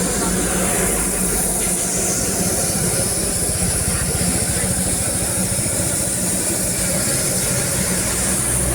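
British-era Darjeeling Himalayan Railway steam locomotive hissing steam steadily over a low, continuous rumble.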